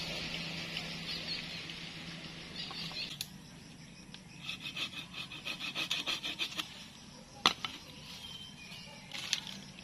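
Rubbing and rasping of a freshly cut sapling's woody roots and branches as they are handled, fading over the first few seconds. About halfway through comes a quick run of short scraping strokes. Later there is one sharp crack, the loudest sound, and a smaller one near the end.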